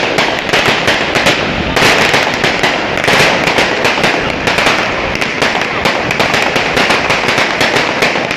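Fireworks going off in a dense, unbroken crackle of rapid sharp bangs and pops.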